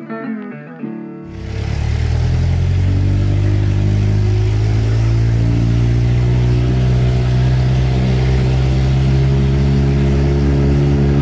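Blues guitar music for about a second, then a vehicle engine starts sounding abruptly and runs steadily and loudly while the vehicle is driven.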